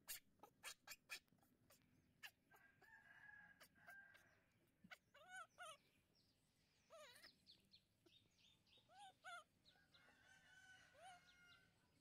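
Faint animal calls in the background: two long, level calls and several short calls that rise and fall in pitch, with a few soft clicks in the first second.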